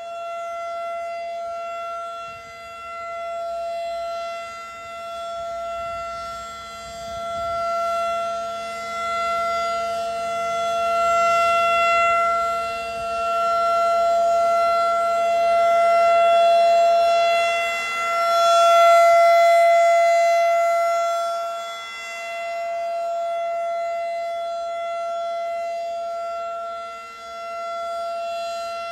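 Federal Signal 2001 DC outdoor warning siren sounding a steady tone for a tornado drill. The pitch holds level while the volume swells and fades every few seconds as the rotating siren sweeps past.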